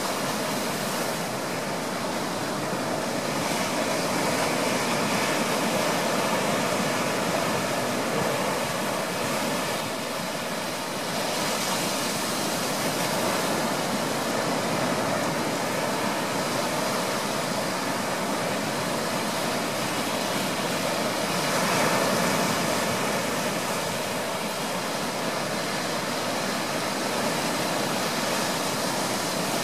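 Surf breaking and washing up onto a sandy beach: a continuous rushing that swells as waves come in, loudest about two-thirds of the way through.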